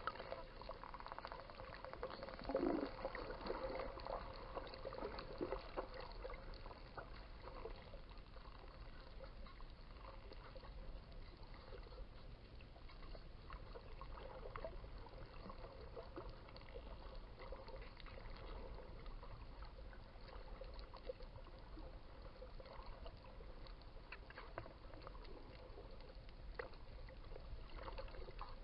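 Dolphins heard underwater: scattered clicks and a few wavering whistles, strongest in the first several seconds, over a steady watery hiss.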